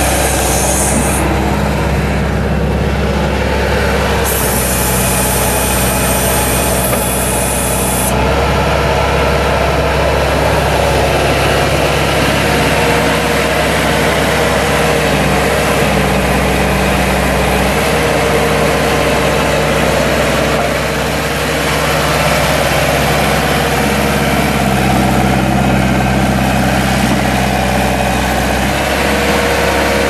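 Bobcat 863 skid steer's four-cylinder turbo diesel engine running steadily, its low pitch shifting slightly a few times, with a high hiss for a few seconds near the start.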